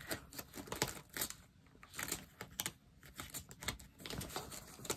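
Light, irregular clicks and rattles of small resin diamond-painting drills and their plastic storage bottles being handled while the drills are sorted by colour.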